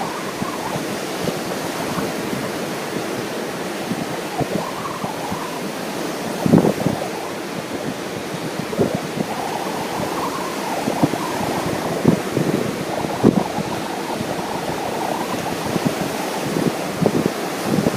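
Ocean surf washing steadily on the beach, with strong wind buffeting the microphone in irregular gusts.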